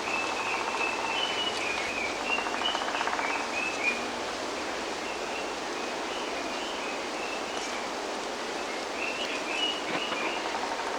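Japanese green woodpecker calling: runs of short, high notes in the first four seconds and again near the end, over a steady rushing background noise.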